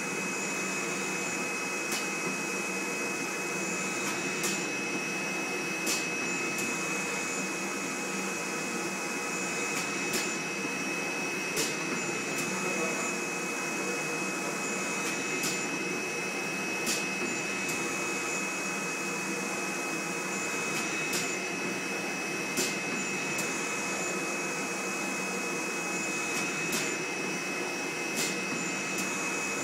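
Jinbao flat-bed screen printing machine running: a steady motor whine with air noise, and sharp clicks about every one and a half seconds as the print carriage cycles back and forth.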